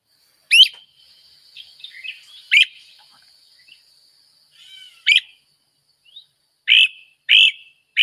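Great crested flycatcher calling: three loud, sharply rising 'weep' calls a couple of seconds apart. Near the end comes a quicker run of short notes about half a second apart, the rattle that can be mistaken for a red-headed woodpecker's call.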